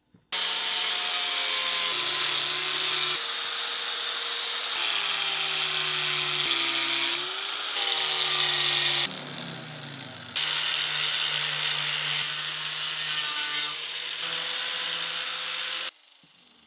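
Angle grinder cutting and trimming the edge of a thermoformed acrylic sheet: a loud grinding hiss over the motor's whine. About nine seconds in the cutting drops away to a falling motor tone, then the grinding resumes, and it stops abruptly near the end.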